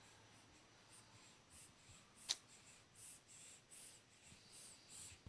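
Near silence with faint scratchy rustling and one sharp click a little over two seconds in.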